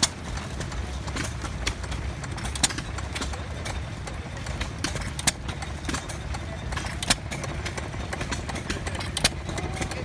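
Several antique stationary gas engines running together, a steady low rumble with irregular sharp exhaust pops as they fire, typical of hit-and-miss engines.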